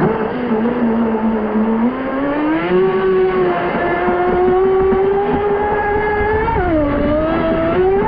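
Pro Boat Sonicwake V2 36 RC boat's brushless motor running under throttle on 6S, its whine climbing in pitch over the first few seconds and then holding, dipping briefly near the end before it climbs again, over a steady rush of noise.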